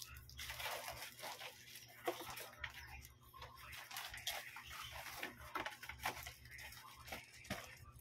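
Plastic shipping bag rustling and crinkling, with some tearing, as the parcel is handled and opened by hand.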